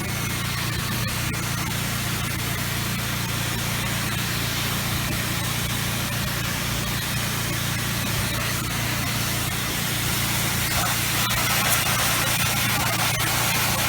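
Pressure washer spraying water through a wide fan rinse tip at high volume and low pressure, a steady hiss that grows a little louder near the end. The machine's engine runs steadily underneath.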